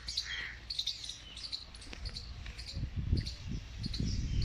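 Repeated short high-pitched chirps, about two a second, from small animals outdoors; from about three seconds in, low rumbling and knocks join them.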